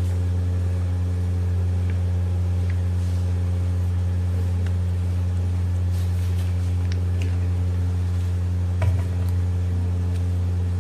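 A steady low hum, unchanging throughout, with a few faint light clicks and taps over it.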